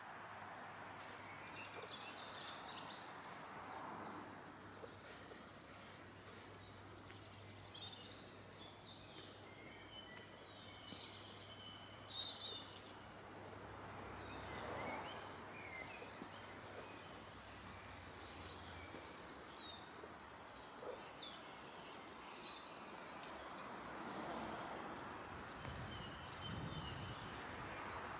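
Small songbirds chirping and singing over faint outdoor background noise, with a low steady hum that stops about two-thirds of the way through.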